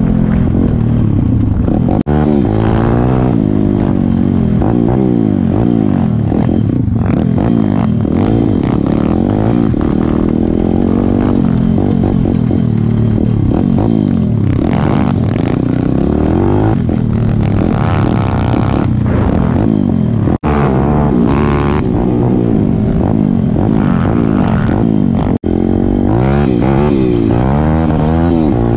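Single-cylinder four-stroke pit bike engine, heard from the rider's own bike, revving up and down as it is ridden over rough ground. The sound breaks off for an instant a few times.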